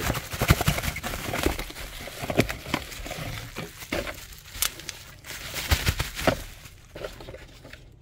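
Bubble-wrap packaging crinkling and rustling in the hands as a replacement power window switch is unwrapped, with many sharp crackles and clicks; it dies down near the end.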